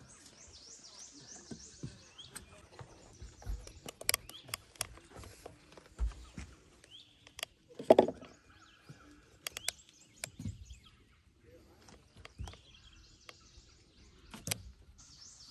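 Outdoor ambience in a fishing boat: scattered light knocks and clicks of gear against the boat, with a louder bump about eight seconds in and a few faint bird chirps.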